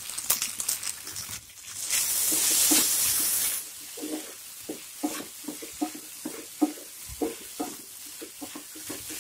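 Beef and green chillies sizzling in a frying pan over high heat. About two seconds in there is a loud burst of sizzling lasting a second and a half. After that, a wooden spatula stirs and scrapes through the meat in repeated strokes.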